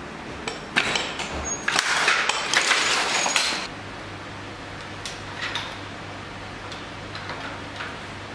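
Wooden and metal parts of a hand jacquard loom clattering and clicking in a dense run of knocks for about three seconds. A steady low hum follows, with a few faint light clicks.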